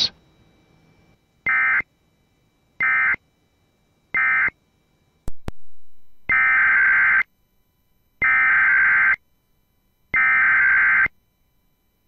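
Emergency Alert System SAME digital data bursts, a harsh modem-like warble. Three short end-of-message bursts close one alert, then after a sharp click three longer header bursts begin the next alert.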